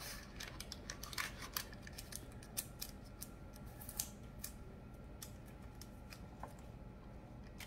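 Faint crinkling and crackling of paper as hands press parchment paper into a metal loaf pan and handle a stick of butter in its paper wrapper. The quick light crackles are thickest in the first two seconds and thin out afterwards.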